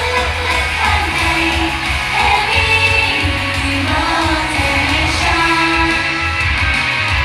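Loud live pop music with a woman singing over a steady, pulsing bass beat.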